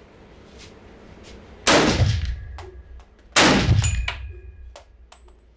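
Two rifle shots about a second and a half apart, each ringing out with a long echo down the indoor range. Several light metallic clinks follow near the end.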